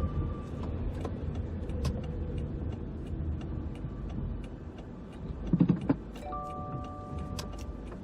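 Inside a car: steady low road and engine rumble with scattered light clicks. A brief louder low rumble comes about five and a half seconds in, and a steady electronic tone starts sounding about a second later.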